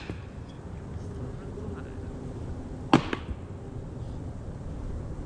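A thrown knife hits a wooden target about three seconds in: one sharp crack, then a lighter knock a moment later. The knife fails to stick.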